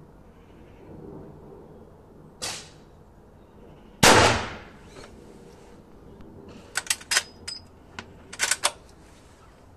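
Winchester 1892 lever-action rifle in .44-40 firing a single shot about four seconds in: a loud crack with a short reverberant tail. A fainter sharp bang comes a second and a half before it. From about seven to nine seconds in there is a quick run of sharp metallic clicks and clacks as the lever action is worked.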